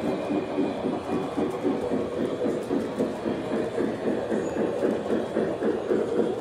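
Electric toy trains running past on their track, with a quick, even rhythm from wheels and motors.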